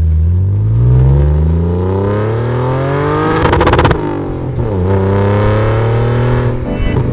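Car engine accelerating hard through the gears: its pitch climbs for about three seconds, breaks into a quick rattle of crackles, drops at a gear change and climbs again before falling back to a steadier note near the end.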